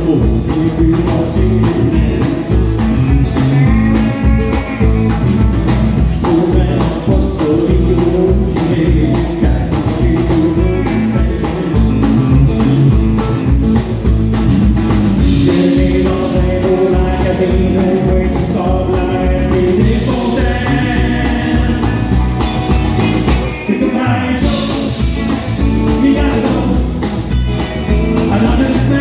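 Live country band playing: a man singing over strummed acoustic guitar and electric guitars, with a steady beat.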